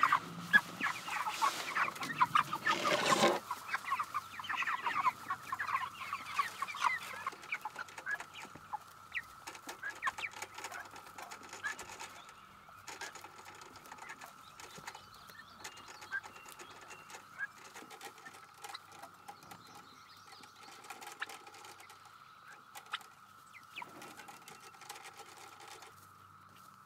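A flock of young white broiler chickens peeping and clucking busily around their feed trough, with a rush of feed being poured in about two to three seconds in. The calls thin out after about eight seconds, leaving scattered peeps over a steady high drone.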